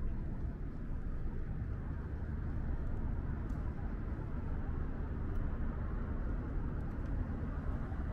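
Steady low rumble of city traffic, even throughout with no single vehicle standing out.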